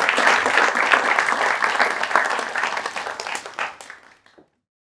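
Audience applauding, a dense crowd of clapping hands that fades out about four seconds in.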